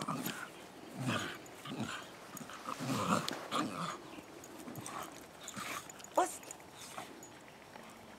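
A dog growling in irregular bursts while tugging on a rope toy, with a short, sharp cry about six seconds in.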